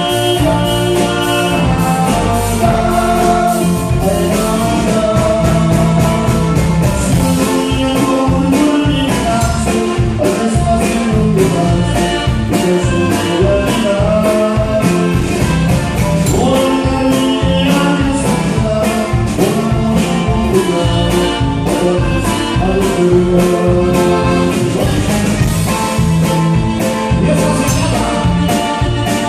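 Live band playing a song with singing over a fast, steady drum beat, loud and continuous.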